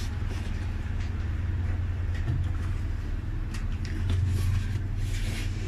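A wooden spatula stirs and scrapes thick maja blanca pudding in a metal pan, making short soft scrapes that come more often a few seconds in. Under it runs a steady low hum.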